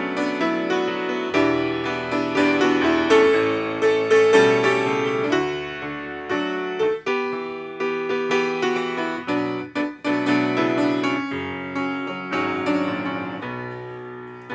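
Grand piano playing a slow, gentle instrumental interlude of struck chords and melody notes, each ringing and decaying, between the sung verses of a song; it grows softer toward the end.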